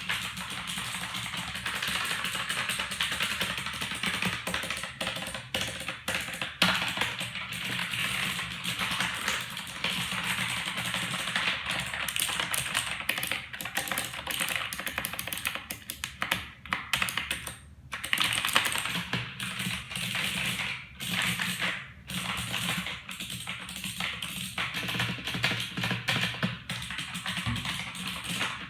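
Fast, continuous typing on a computer keyboard: a dense stream of key clicks with a few brief pauses.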